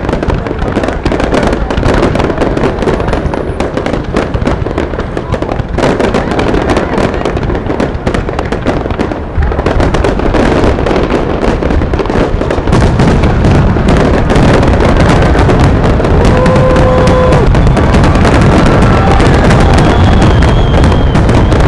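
Fireworks display: a dense, continuous barrage of bursts and crackles with a heavy low rumble. It grows louder and more sustained about halfway through.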